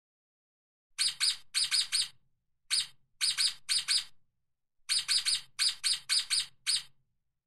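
Ermine giving short, high-pitched chirping squeaks in quick runs of two or three, about twenty calls in all, with brief pauses between runs.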